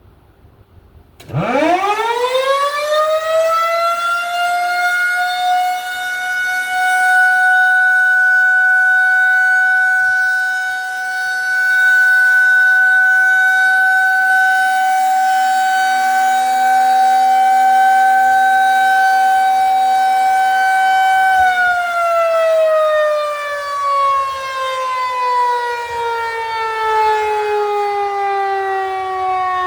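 Federal Signal 2001-130 rotating electromechanical civil defense siren on its monthly test: it starts about a second in, winds up quickly to one steady high tone and holds it, its loudness swelling and dipping a little, then winds down in a long, slow falling pitch through the last third.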